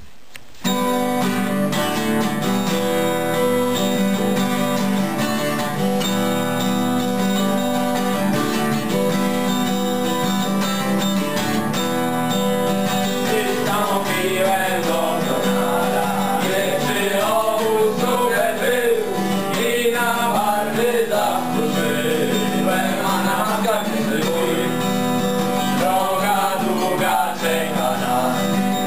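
Acoustic guitar playing a ballad, starting a moment in, with a male voice singing over it from about halfway through.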